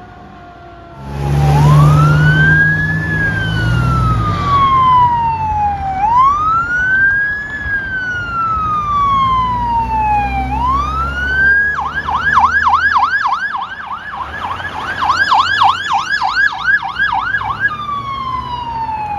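Fire truck electronic siren in wail mode, each cycle rising in about two seconds and falling slowly over about three, switching about twelve seconds in to a fast yelp of about four sweeps a second, then back to the wail near the end. A deep low tone sounds under the siren for the first few seconds as the truck comes up.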